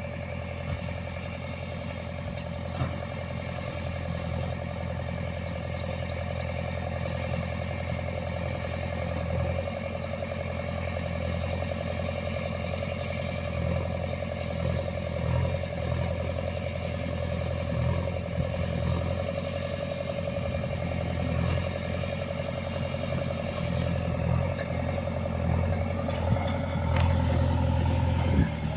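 An engine running steadily with some clatter, getting louder in the last few seconds, with one sharp click near the end.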